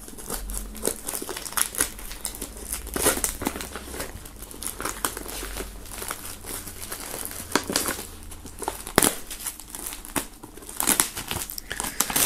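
Clear plastic shrink-wrap being torn and peeled off a cardboard box, crinkling and crackling irregularly throughout, with a few louder crackles.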